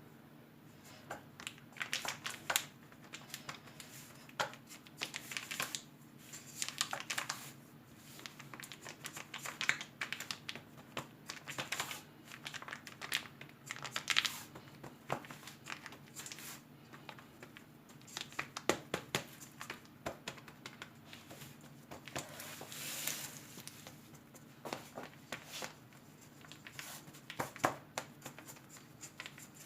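Crumbly cookie-crumb base being spread and pressed into a cake mould, giving scattered soft crunching and scraping clicks over a faint steady hum.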